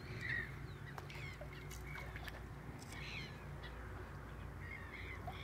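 Wild birds calling: short, scattered chirps and calls, with a few faint clicks over a low steady rumble.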